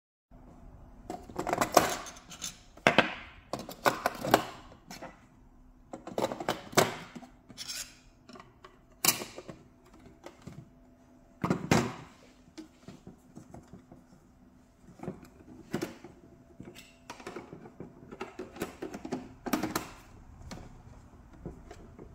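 Hard plastic knocks and clicks from handling a small battery-powered toy claw machine, with some fifteen separate irregular knocks, the sharpest about 9 and 12 seconds in.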